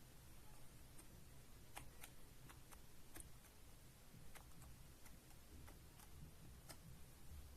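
Faint, separate clicks of gaming-keyboard keys being pressed one at a time, about a dozen at irregular intervals.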